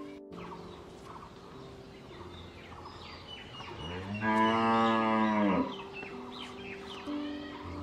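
A cow moos once, one long call of nearly two seconds about four seconds in. Soft background music and short bird chirps sound around it.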